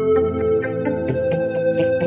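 Background music with held notes and a regular beat.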